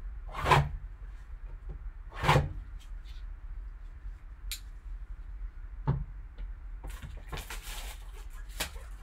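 Shrink wrap being cut and stripped off a cardboard trading-card hobby box by gloved hands: two handling thumps early, scattered small clicks and rubs, then a burst of plastic crinkling near the end as the wrap is pulled away.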